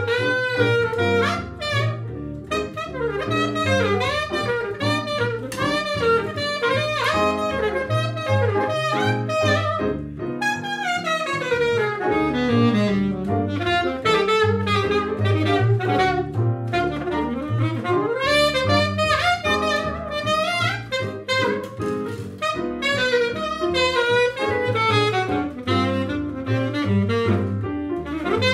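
Small-group jazz played live: an alto saxophone plays a melodic line over piano and plucked upright bass, with a long falling run and then a rising one in the middle.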